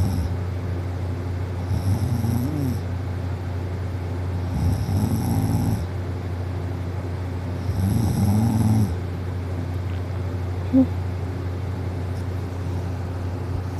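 A girl asleep on her back snoring: three rasping snores about three seconds apart, then a pause in the last few seconds, over a steady low hum.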